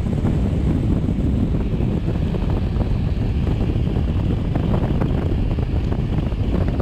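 Wind buffeting the microphone in a steady, heavy low rumble, with a few small knocks scattered through it.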